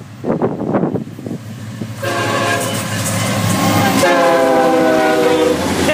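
Florida East Coast Railway locomotive's air horn sounding as the freight train approaches: a long chord about two seconds in, then a second blast whose pitch drops slightly as the locomotive passes close by.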